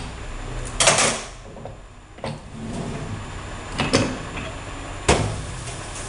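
Four sharp metal knocks and clunks, spaced about a second or more apart, the first the loudest with a short ring, as the front pump of a Chevy Turbo Hydramatic 350 automatic transmission is worked loose and drawn out of the case.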